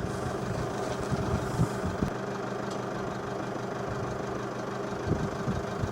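Motor vehicle engine running with a steady hum, and a few light knocks or rattles.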